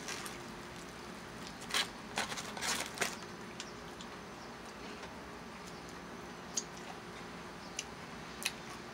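A person eating crispy fried chicken: a cluster of sharp crackles as the breading is torn and bitten about two seconds in, then quieter chewing with a few single mouth clicks and smacks, over a steady background hiss.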